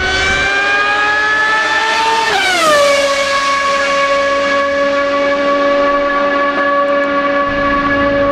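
Car's mechanical whine while driving on the motorway: it rises slowly in pitch, drops sharply about two and a half seconds in, then holds one steady pitch.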